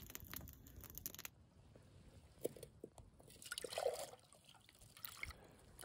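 Metal camp mug dipped into an ice-fishing hole, water sloshing and trickling faintly as it fills, loudest about three to four seconds in.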